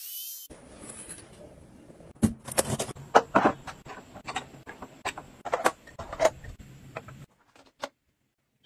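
An electric lint shaver's motor whirs for a moment and cuts off. Then comes a run of sharp plastic clicks and taps, about two a second for some five seconds, as toothbrushes and clear cups are snapped into a plastic wall-mounted toothbrush holder.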